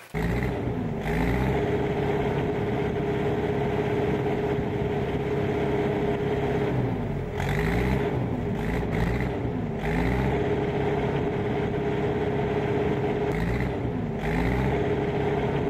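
A motor vehicle's engine running steadily while driving, its pitch dipping and rising several times, with a constant drone over road noise.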